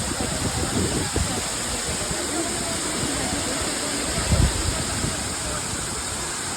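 Bhimlat waterfall's water rushing in a steady roar, with a couple of low thumps on the microphone, one near the start and one about four seconds in.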